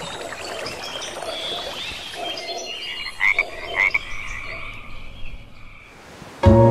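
Frogs calling: a busy chorus of short chirps and croaks over a faint hiss, with a couple of louder calls about three and four seconds in. Music starts just before the end.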